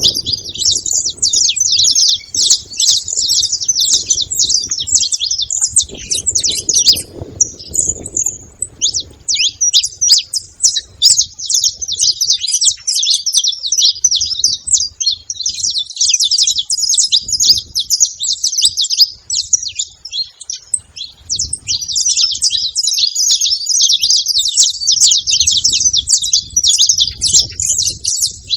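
Saffron finch singing a long, unbroken run of quick high chirps and trills, with a short pause about nine seconds in.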